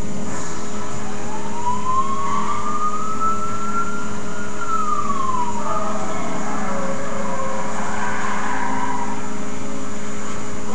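Police siren wailing: one slow rise in pitch over about three seconds, then a fall, over a steady electrical hum.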